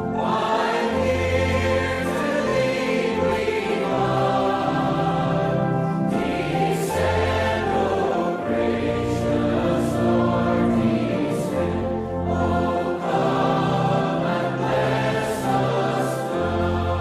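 Choir singing a hymn with accompaniment, in slow, held chords over a changing bass line.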